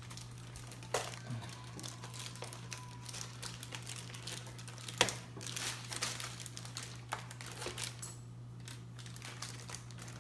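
Packaging crinkling and rustling as an RC car is unpacked from its box, with scattered sharp clicks and knocks, the loudest about a second in and about halfway through; it goes quieter near the end. A steady low hum runs underneath.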